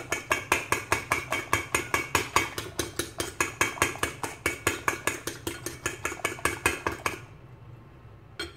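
A fork beating eggs in a ceramic bowl, its tines clicking against the bowl in a fast, even rhythm of about five or six strokes a second. The beating stops about seven seconds in, followed by a single clink near the end.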